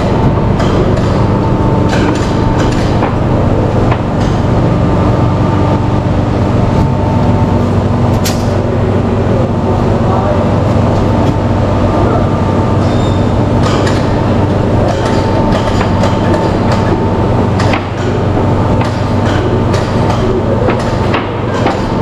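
Loud, steady mechanical drone with several held tones, overlaid by frequent short clanks and knocks.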